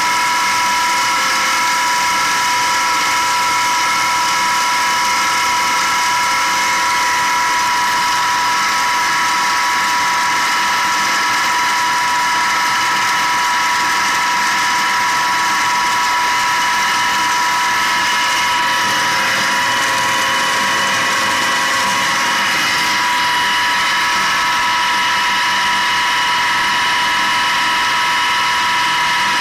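An 18.5 kW Tesla-type bladeless disc sand pump (five discs, 20 mm gaps) running steadily under load with a high multi-tone whine, over the hiss of sandy water pouring from its outlet hose into a steel barrel.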